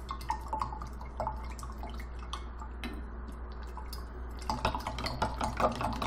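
Spoon stirring in a glass jar of hot water, dissolving a tablespoon of light corn syrup, with light clinks against the glass that come quicker and louder over the last second and a half.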